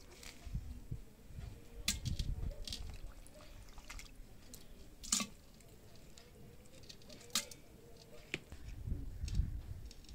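A spoon scooping thick yogurt from a bowl and dropping it into a clay pot: soft wet squelches broken by about five sharp clicks of the spoon against the bowl and the pot's rim.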